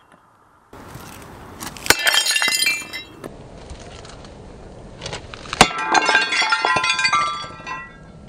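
A 6-pound sledgehammer smashing a ceramic dinner plate, heard twice, about two seconds in and again about five and a half seconds in: each a sharp crack followed by about a second of shards clattering and tinkling.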